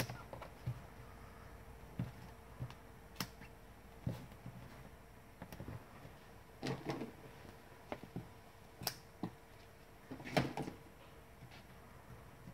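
Small craft scissors snipping strips of foam tape, with scattered sharp clicks and taps as the tape and card are handled on the desk. Two short clusters of snips come about seven seconds in and near the end, the later one the loudest.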